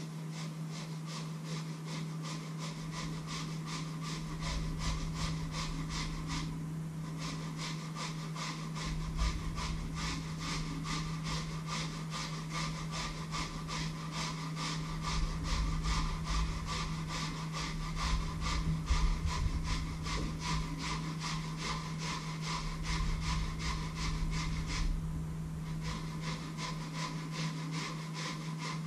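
Even, rhythmic scraping strokes, about three a second, from hand food preparation at a bowl, over a steady low hum; the strokes stop briefly twice.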